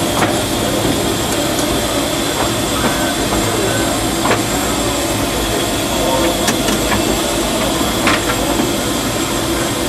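Cab of the 1925 Baldwin steam locomotive Ernest S. Marsh rolling along the track: a steady rumble and rattle, with sharp clicks every second or two from the wheels.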